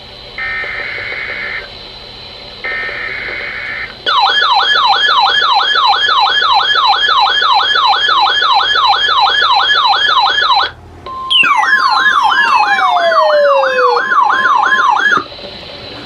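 NOAA Weather Radio receivers alerting for a tornado warning. Two short bursts of the digital alert-header tones come first. A loud warbling alarm follows, wavering up and down about three times a second. After a brief break the warble returns over a steady alert tone, with falling whistle sweeps, and then cuts off.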